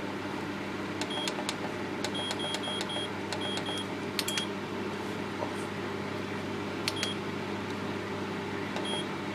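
Silvercrest 2000 W fan heater running with a steady fan hum while its control panel gives short high beeps at each button press. A quick run of beeps comes about two seconds in and single beeps follow later, as the timer is stepped to 1 minute.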